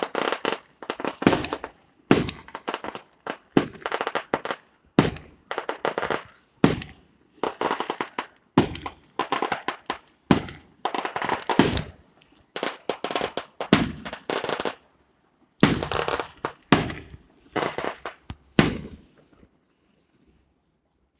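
Strings of firecrackers going off in rapid crackling volleys, each about a second long with brief gaps between them. The volleys stop about nineteen seconds in.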